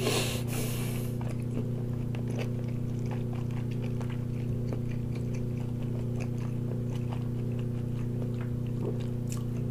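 A person biting into and chewing a roasted, crisp-skinned chicken leg: one louder bite right at the start, then small scattered chewing clicks. A steady low electrical hum runs underneath.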